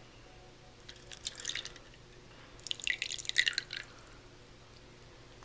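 Water poured into a small seed-germination container, trickling and splashing in two short spells, the second longer and louder.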